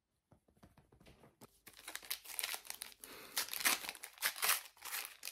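Wrapper of a Match Attax trading-card pack being torn open and crinkled in the hands. It is faint at first and gets loud about a second and a half in.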